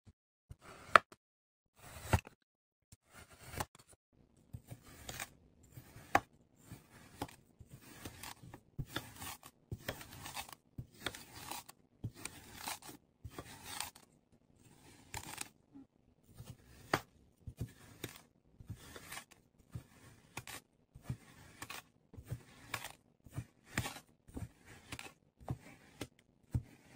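Kinetic sand being cut with a blade, a short crunchy stroke about once a second.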